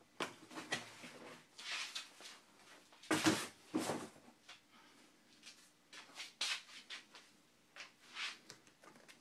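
Paper cookbooks being handled and shuffled: a string of short rustles and slides of paper and card, the loudest about three to four seconds in.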